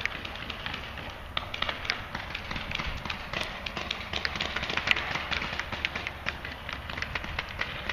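Paintball markers firing: rapid, irregular sharp pops, several a second, with the loudest about five seconds in.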